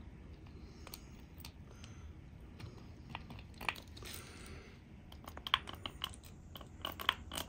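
Faint light clicks and taps of a plastic HO-scale flat car and its load being handled, picked up off a cutting mat and turned over in the hands. The clicks come more often in the second half, with a brief soft hiss around the middle.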